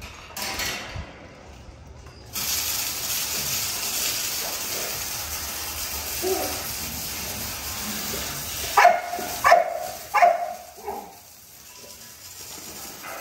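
A dog barks three times in quick succession about nine seconds in, with a softer fourth bark just after. Before the barks there is a steady hiss of a hose spraying water, starting about two seconds in.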